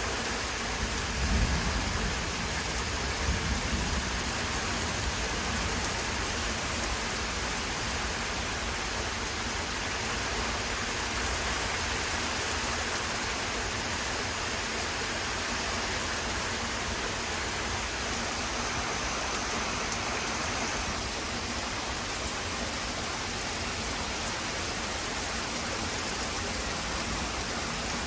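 Very heavy rain pouring down and splashing on surfaces in a steady downpour, with a brief low rumble about one to four seconds in.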